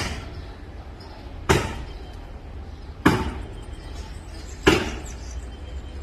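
Axe chopping into wood in a steady rhythm, one sharp strike about every second and a half, each trailing off briefly.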